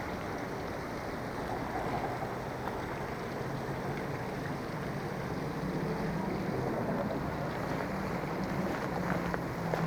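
Steady low engine drone with a wash of wind and water noise, the hum coming in about four seconds in and growing slightly louder.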